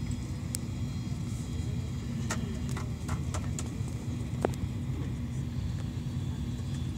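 Steady low rumble of an airliner's jet engines and airframe heard inside the cabin while the plane taxis, with a faint steady hum. A few light clicks come around the middle, and one sharper click about four and a half seconds in.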